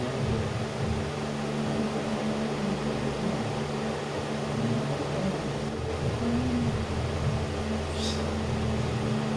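Steady low mechanical hum over a constant hiss, with a short faint tick about eight seconds in.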